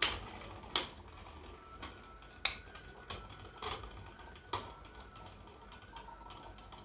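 Two Beyblade Burst spinning tops, Spriggan Requiem and Legend Spriggan, clashing as they spin in a plastic stadium. About seven sharp clacks come in the first four and a half seconds, roughly a second apart and getting weaker, over a faint steady whir from the spinning tops.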